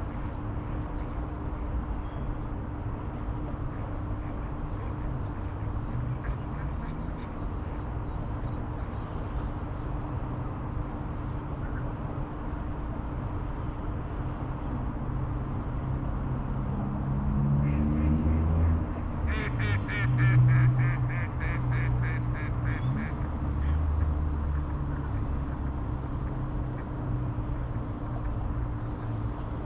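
A duck quacking in a rapid run of calls, about four a second, for a few seconds past the middle. Under it runs a steady low rumble of distant traffic.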